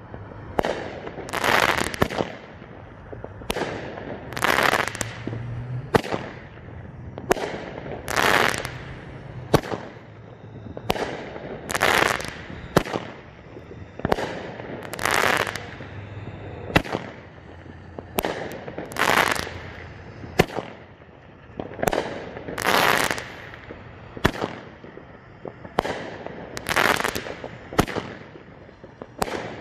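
Multi-shot consumer firework, close by, firing shot after shot about every two seconds. Each shot is a sharp crack with a loud hissing burst of sparks.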